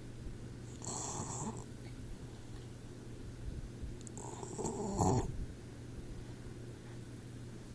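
Four-month-old boxer puppy snoring in its sleep: two snoring breaths about three and a half seconds apart, the second one longer and louder.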